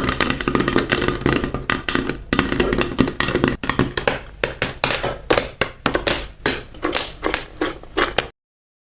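Popcorn kernels popping, a dense run of pops that thins out to scattered single pops as the batch nears the end of popping. The sound cuts off suddenly near the end.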